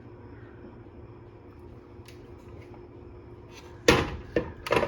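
A low steady room hum, then near the end about four sharp knocks and clatters from things being handled in a kitchen, the first the loudest.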